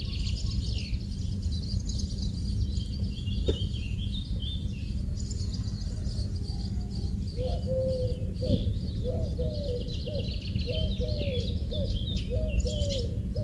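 Small birds chirping and twittering without a break, joined about halfway through by a dove cooing in short repeated low phrases, over a steady low background rumble.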